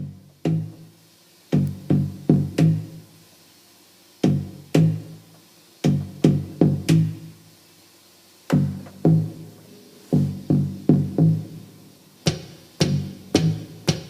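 Improvised looped instrumental music: short, percussive plucked low notes in rhythmic groups, getting busier near the end.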